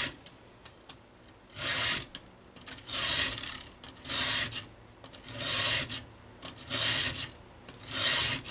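Round chainsaw file in a file guide rasping across a chainsaw chain's cutter tooth, six push strokes about a second and a quarter apart. A damaged cutter is being filed back a long way to restore its cutting edge after the depth gauge was lowered.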